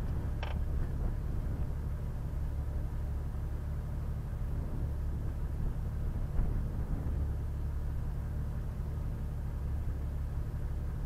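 Off-road vehicle driving slowly over a dirt track: a steady low engine and road rumble, with a short click about half a second in.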